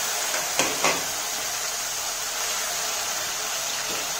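Chopped tomato sizzling steadily in hot oil in an aluminium kadhai on a low flame, with two light knocks of a metal spatula against the pan within the first second.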